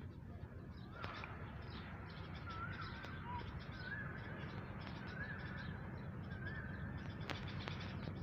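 Birds calling in open air: one bird repeats a short rising call about once a second, four times, over fainter chirping from other birds and a steady low background rumble.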